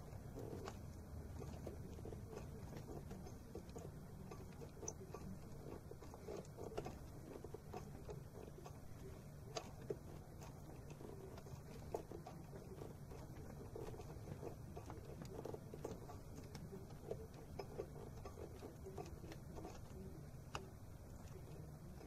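Faint, scattered light clicks and handling noises from a hand working among the hoses and parts in a car's engine bay, over a steady low hum.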